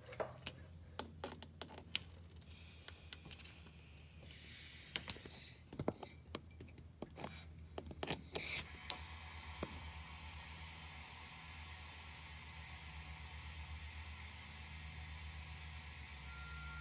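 Compressed air hissing steadily as a boost leak tester pressurizes the car's turbo intake piping, starting with a sharp snap about eight and a half seconds in. Before that come scattered clicks and taps and a short hiss.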